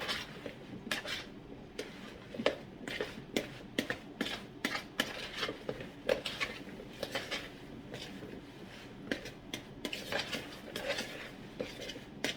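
Dishes and kitchen utensils clinking and scraping, a run of irregular knocks and clicks.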